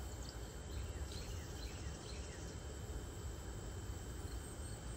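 Steady outdoor insect trilling with a low rumble of wind underneath and a few faint chirps.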